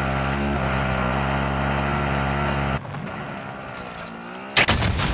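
A steady, loud motor drone that drops away about three seconds in, leaving a quieter background. Near the end comes a sudden loud, noisy burst.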